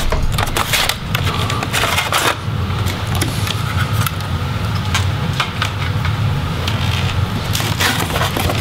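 Laptop optical drive being slid out of its bay: short plastic-and-metal scraping and clicks in the first two seconds or so, with a few more clicks near the end. A steady low hum runs underneath.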